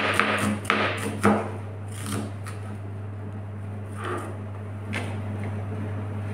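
Chef's knife slicing garlic cloves on a plastic cutting board: a few sharp taps in the first second or so, then quieter knife and handling sounds, over a steady low hum.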